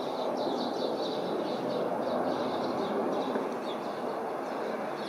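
Steady distant rumble of a climbing Embraer 170 regional jet's engines, swelling slightly midway, with small birds chirping rapidly over it.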